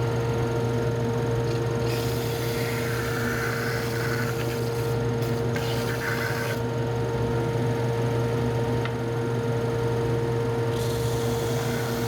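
Woodshop power sander running with a steady hum, with two stretches of louder hiss as the wood is sanded, about two seconds in and again near the end.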